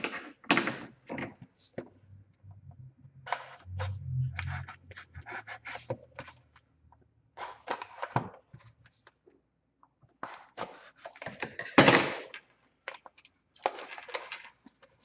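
Cardboard hobby box and its mini-boxes of hockey cards being handled and opened by hand: scattered scrapes, taps and rustles, with a loud thunk about twelve seconds in.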